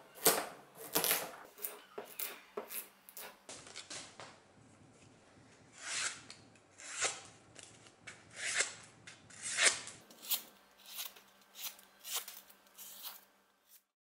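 Freshly sharpened cleaver chopping a carrot into rounds on a wooden cutting board, quick knocks about three a second. After a few seconds it switches to crisp single slices through a sheet of paper, a second or so apart, then quicker light cuts that stop just before the end.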